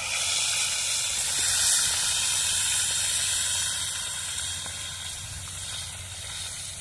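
Fish frying in hot oil in a plow-disc pan: a steady, dense sizzle that swells about a second and a half in and slowly eases toward the end.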